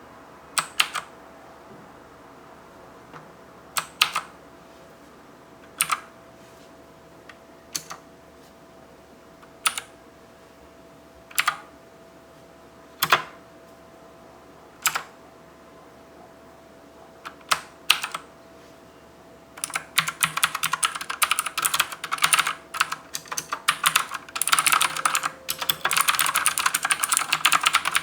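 Abko HACKER K600 HADES mechanical keyboard with clicky blue switches: single keystrokes about every two seconds, then, about twenty seconds in, fast continuous typing.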